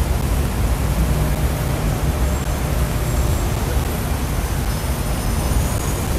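Steady rumble of city street traffic, with a few faint high squeals in the middle.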